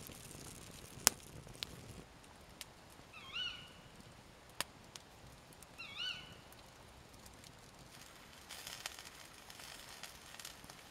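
Campfire crackling quietly with a few sharp pops. An animal gives a short rising-and-falling call twice, a few seconds apart.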